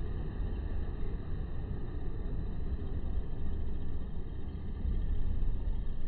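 Steady low rumbling background noise, with no bird calls.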